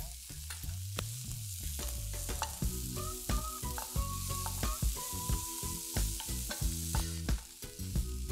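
Chopped tomatoes and onions sizzling in a hot non-stick frying pan, stirred with a spatula that clicks and scrapes against the pan. Soft background music with held notes comes in a few seconds in.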